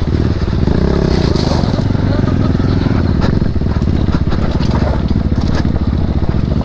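Single-cylinder sport motorcycle engine running steadily under load on an off-road climb, with the tyres crunching and scraping over loose stones.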